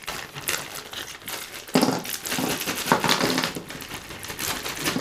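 Clear plastic zip-lock bag crinkling irregularly as it is opened and handled and the accessories inside are pulled out.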